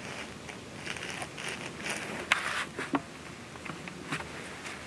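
Close rustling and crackling of clothing and camera handling, with two sharp clicks about two and three seconds in.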